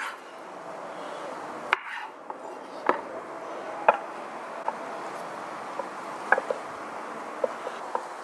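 Kitchen knife cutting soft roasted red bell pepper on a wooden cutting board: scattered sharp knocks of the blade on the board, about a second apart, followed by lighter clicks as the pieces are handled and packed into a glass container.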